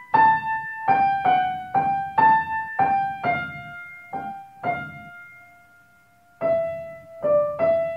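Piano playing a slow single-line melody. About halfway through a long note is held and left to fade, a few more notes follow, and the closing note starts near the end and is left ringing as the piece finishes.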